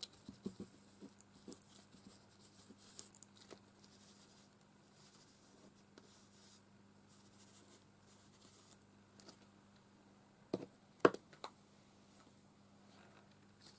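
Faint dabbing and rubbing of a wipe on a paper journal page, soft scuffing with small clicks. Two sharp knocks about ten seconds in.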